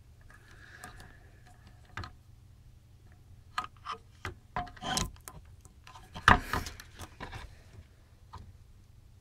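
Handling noise from the power supply's circuit boards and hardware: a scattered run of light clicks, taps and rubs, with one louder knock a little past the middle.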